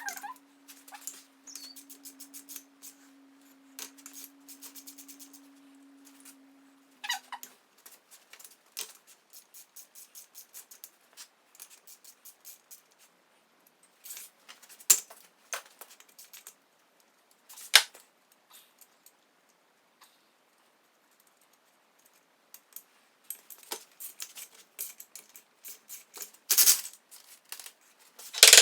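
Ratchet wrench clicking in quick runs as case bolts and nuts are backed off a VW engine case, with sharp metal clinks and knocks from tools and parts being handled. A faint steady hum runs under the first several seconds.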